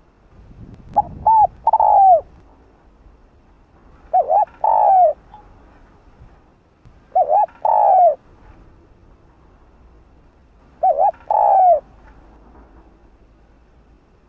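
Spotted dove cooing: four repeated coo phrases about three to four seconds apart, each two short notes followed by a longer note that falls away at the end.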